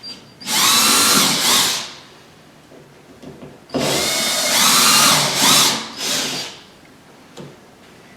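Power drill run in two bursts, the motor's pitch rising as it spins up and falling as it stops, boring a small-bit test hole through the wall to find the stud. A short click follows near the end.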